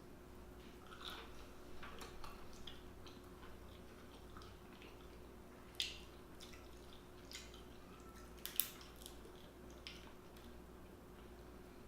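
Close-up eating sounds: soft wet chewing and mouth smacks with scattered small clicks, and two sharper clicks about six and eight and a half seconds in, over a faint steady hum.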